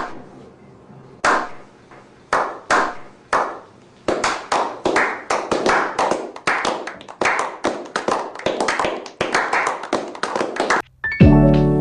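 Hand clapping by one or a few people: a few spaced claps, then a steady run of about three claps a second that stops abruptly near the end.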